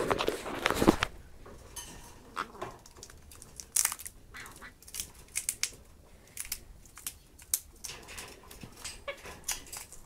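Pionus parrots cracking peanut shells in their beaks: scattered, irregular sharp cracks and crackles, after a louder burst of rustling noise in the first second.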